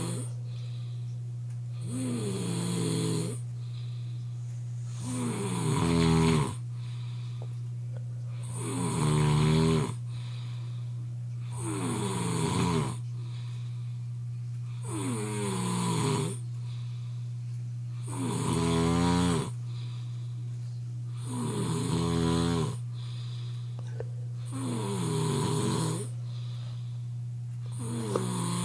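A sleeping person snoring hard and rhythmically: eight loud snores about three seconds apart, each sliding down in pitch as it goes, over a steady low hum.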